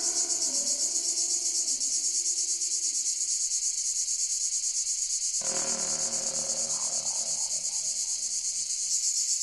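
Cicadas singing in chorus: a dense, high-pitched, rapidly pulsing shrill. Soft synthesizer tones swell under it just at the start and again about five seconds in, then fade.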